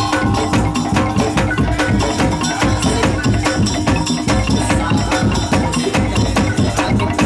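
Madurese daul (tong-tong) music: fast, dense rhythmic beating on wooden slit drums and drums, with held melodic notes running over the rhythm.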